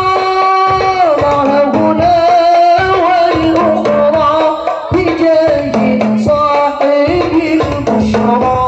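Sholawat devotional song: long, ornamented sung notes that slide between pitches, with a steady rhythm of hand-drum strokes underneath, played through PA loudspeakers.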